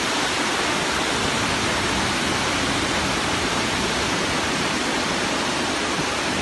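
Waterfall: a steady, loud rush of falling water, even and unbroken throughout.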